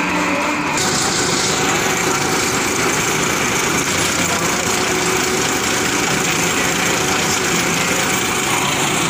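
Massey Ferguson 241 tractor's diesel engine running steadily, turning a PTO-driven alternator that is powering a submersible borewell pump.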